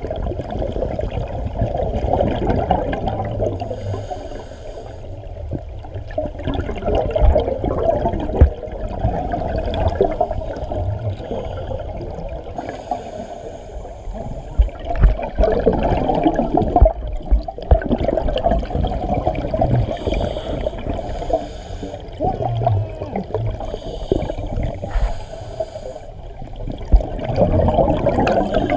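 Scuba diving heard underwater: the gurgling, bubbling rush of divers' exhaled bubbles and regulator breathing, with a few brief hissy bursts spread through it.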